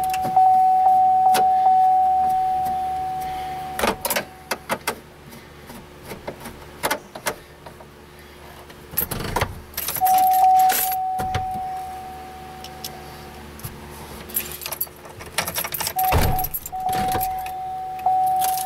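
Clicks, knocks and rattles of hand work at a Chevrolet truck's dashboard as the instrument cluster and its trim are fitted and screwed in, with the ignition keys jangling. A steady high tone sounds in stretches: it stops about four seconds in, returns for about three seconds around the middle, and comes back near the end.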